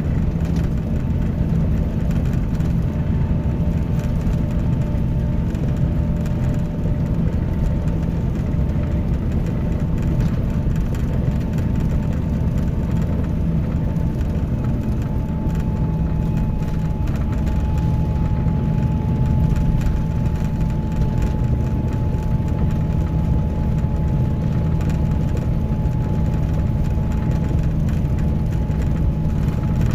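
Scania K310IB coach's engine running steadily, a low sound with a thin steady whine above it.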